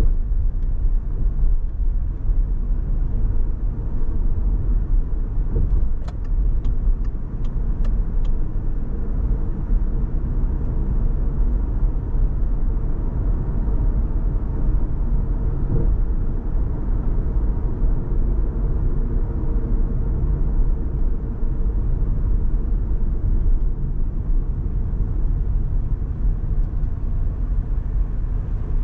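Car driving on city streets: a steady low rumble of road and engine noise. A short run of about six light ticks comes about six seconds in.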